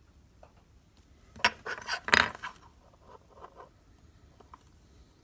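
Metal parts being handled: a short burst of clinking and clattering about a second and a half in, loudest around two seconds, followed by a few lighter clinks.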